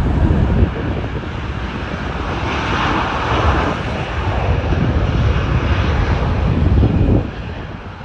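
Lufthansa Airbus A380's four Rolls-Royce Trent 900 jet engines at takeoff thrust as the aircraft accelerates down the runway and rotates: a loud, steady jet noise with wind buffeting the microphone. The low rumble drops off about seven seconds in.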